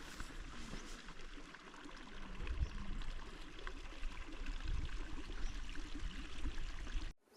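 Running water, a steady stream-like rush, with irregular low rumbles of wind on the microphone. It cuts off abruptly just before the end.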